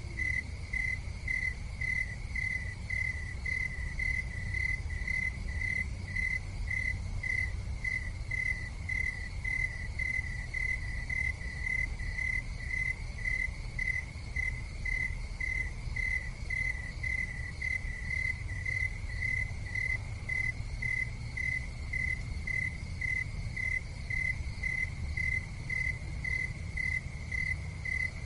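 Steady, evenly repeated chirping, about two and a half chirps a second, typical of a cricket, over a constant low rumble.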